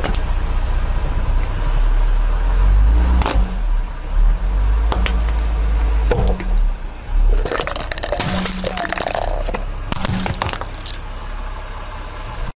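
A car tyre rolling slowly over small white cups on concrete and crushing them, over the car's low rumble. Sharp cracks come a few seconds in, then a dense crackle of snapping shards around the middle, and one more crack later.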